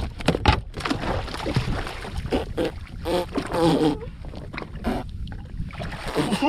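Water splashing and sloshing against the side of a drifting jet ski as a hooked tuna is handled at the surface, with scattered knocks throughout and a few short voice sounds about halfway through.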